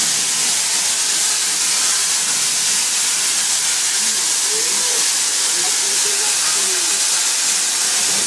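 Steady hiss of escaping steam from the Darjeeling Himalayan Railway steam locomotive No. 19, loud and even throughout, with faint voices behind it.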